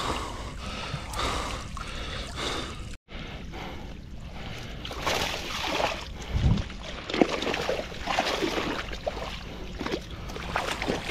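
Water sloshing and splashing irregularly as people wade and feel about for fish in shallow water, cutting out for an instant about three seconds in.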